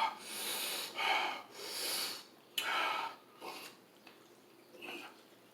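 A man breathing hard through the mouth and nose in a run of loud, hissing breaths and sniffs, about one every half second to second, then a single fainter breath near the end: heavy breathing from the burn of 2x spicy Samyang fire sauce while eating.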